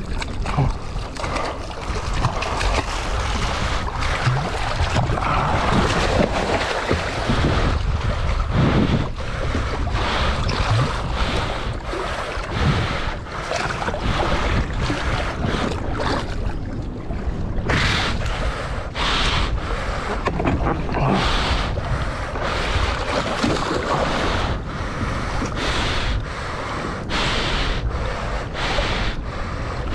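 Wind buffeting the microphone over water sloshing and splashing against a small boat's hull, with many short splashes and knocks as a giant trevally is held alongside.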